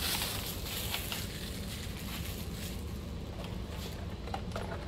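Cellophane film crinkling as it is peeled off, densest in the first second or so and then fading, with a few small clicks near the end over a steady low hum.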